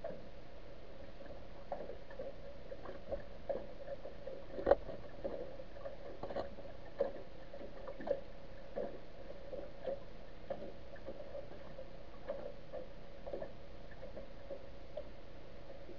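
Underwater ambience from a camera on the seabed: a steady hum with irregular faint clicks and ticks, one sharper click a little before the middle.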